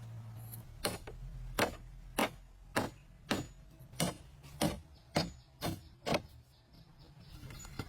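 About ten sharp, evenly spaced blows, a little under two a second, which stop about six seconds in.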